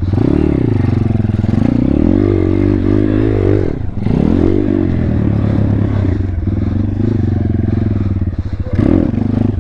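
Thumpstar 140cc single-cylinder four-stroke pit bike engine being ridden hard, its revs rising and falling repeatedly as the throttle is opened and shut, with a short drop off the throttle about four seconds in.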